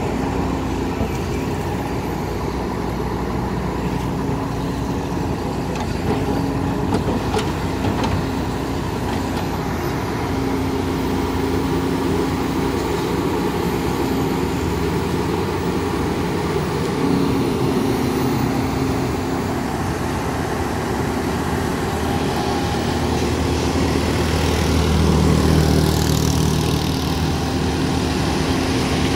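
Volvo EC210 crawler excavator's diesel engine running steadily as the machine digs in wet mud, growing louder for a few seconds about twenty-five seconds in.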